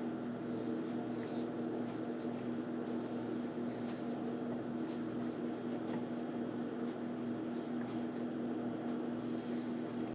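Steady machine hum, like a fan or appliance motor, with a few faint ticks.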